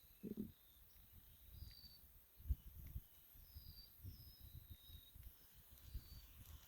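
Faint outdoor ambience: a bird giving several short, high, slightly falling chirps, over scattered low thumps, the sharpest about two and a half seconds in.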